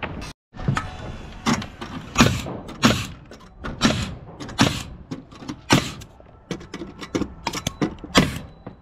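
Pneumatic framing nailer firing nails through plywood roof sheathing into wooden trusses: more than a dozen sharp shots at uneven intervals, about one or two a second.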